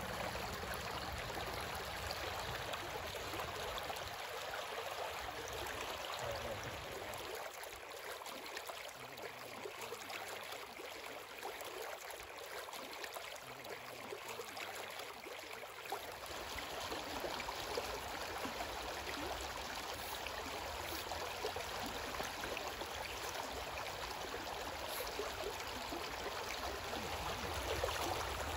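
Shallow creek water running and babbling steadily over stones in a riffle.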